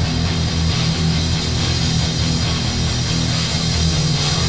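Grindcore punk band recording: a loud, dense wall of distorted electric guitar over a heavy low end, with no vocals.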